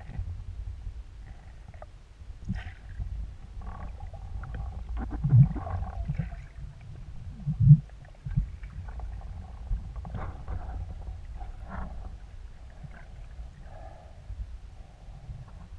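Muffled underwater sound from a camera housing mounted on a speargun: a steady low rumble of water moving past, with scattered knocks and two louder thumps about five and eight seconds in.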